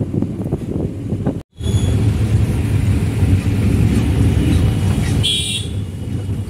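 Taxi running on city streets, heard from inside the cab: a steady low engine and road rumble that cuts out for a moment about a second and a half in. A short car-horn toot sounds about five seconds in.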